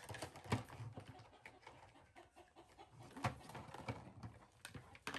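Irregular light clicks and knocks of plastic toys, a toy dump truck and small plastic tools, being handled and set down on a wooden surface.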